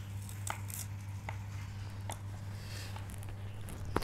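Small knife cutting red onion in a plastic bowl: faint clicks and taps of the blade about once a second, with a sharper knock at the end, over a steady low hum.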